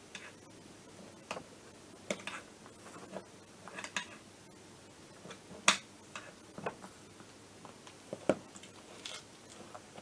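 Irregular small clicks and knocks of metal parts being handled and pressed into place on a scooter engine's crankcase, with one sharper knock about halfway through.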